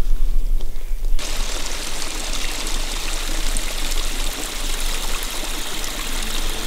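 A small creek trickling and splashing through brush and over a small drop, cutting in suddenly about a second in.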